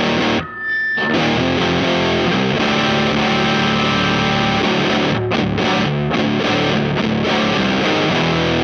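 Electric guitar tuned to C standard, played as distorted chords through a Rat-style distortion pedal (Space Sounds Spacecraft). The chords stop briefly about half a second in, then ring on continuously.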